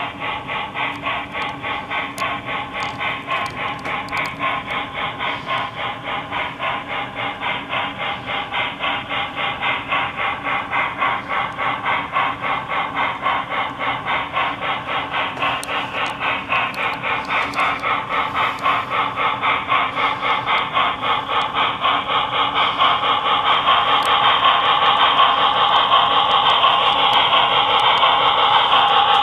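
Model steam locomotive's QSI sound decoder playing steam exhaust, a rapid, even chuffing through the model's small speaker, growing louder over the second half.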